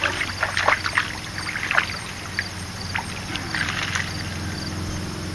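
Hooked catfish splashing and thrashing at the water's edge as it is reeled in and lifted out, with a cluster of splashes in the first two seconds and another about three and a half seconds in. Crickets chirp steadily underneath.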